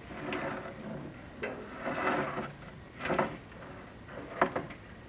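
A chimney inspection camera being lowered down a flue tile liner, scraping and rubbing against the tile walls in several irregular passes, with one sharp knock near the end.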